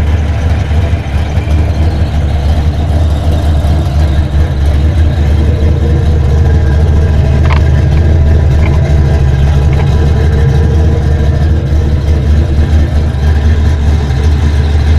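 1979 Chevrolet Malibu's 383 V8 running steadily at idle, with a low, even exhaust note.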